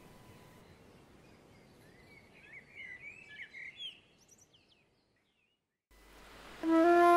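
A few birds chirping in short, quick calls over a faint hiss, cutting off into silence; then a flute melody starts loudly near the end.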